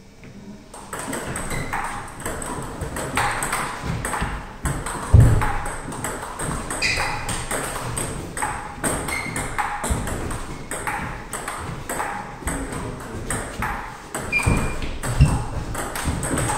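Table tennis rally: the plastic ball clicking off the rubber paddles and bouncing on the table in a quick, steady run of hits.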